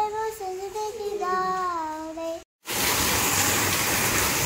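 A child singing a slow, wavering melody, which cuts off abruptly about two and a half seconds in. Then a steady hiss of heavy rain.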